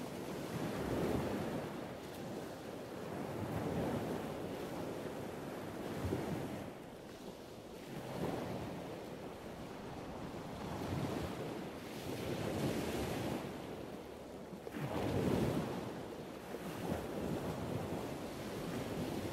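Wind buffeting the microphone of a camera on the move, a rushing noise that swells and fades in gusts every second or two.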